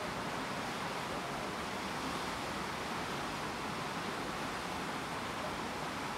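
Steady rushing noise of wind and water streaming past a moving coastal ship, even throughout, with no distinct events.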